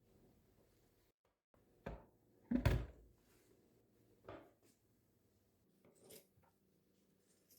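A few short knocks and handling noises of objects being set down and moved, the loudest about two and a half seconds in.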